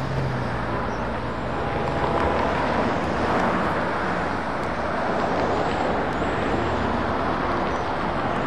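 Road traffic on a two-lane highway: cars and a pickup truck passing with steady tyre and engine noise, a little louder from about three seconds in.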